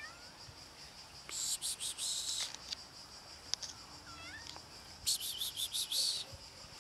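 Hungry stray calico cat meowing for food, short meows right at the start and a couple more about three and a half to four and a half seconds in. High-pitched insect buzzing comes in two loud bursts, about a second and a half in and again about five seconds in.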